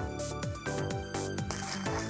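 Electronic background music with a steady beat of deep drum hits, about two a second.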